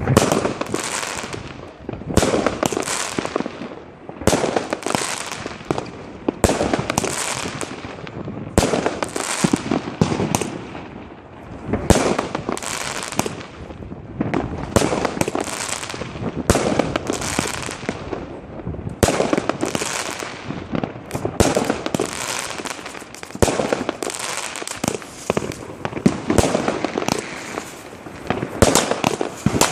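Consumer fireworks firing continuously: a dense run of sharp bangs and crackling, one volley after another with barely a pause.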